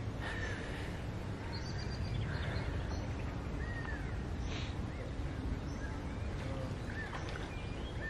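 Steady hiss of rain falling on a lake, with birds giving a few short chirping calls every few seconds.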